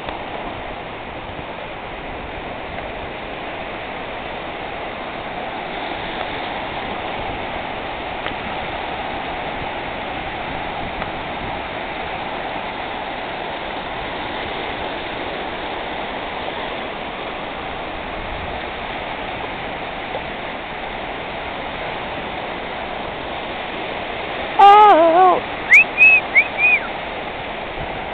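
Ocean surf breaking and washing up the beach, a steady rushing wash. About three seconds before the end, a quick run of short, loud, high-pitched sounds with wavering pitch cuts in briefly.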